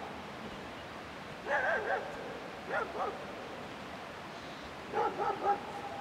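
A dog whining and yipping in short bursts, three times, with a wavering pitch.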